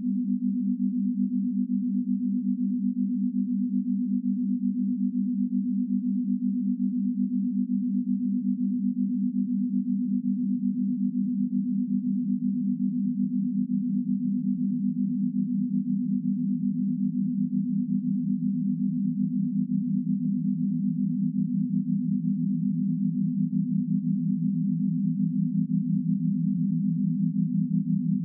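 Synthesised meditation tone of the kind sold as a pineal-wave track: a few steady pure tones close together around 200 Hz, throbbing in a fast, even pulse.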